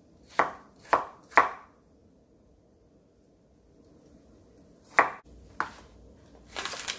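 Kitchen knife chopping on a wooden cutting board, slicing bottle gourd: three sharp knife strikes about half a second apart, a pause, then two more strikes about five seconds in. A short rustle follows near the end.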